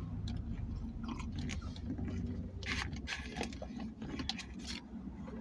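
Scattered small clicks and crunchy handling noises close to the microphone, over the low steady hum of a car's engine running.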